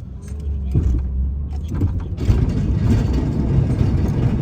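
Snowplow truck's engine running and pulling away under load. About two seconds in, a louder rushing noise builds over the engine and keeps on.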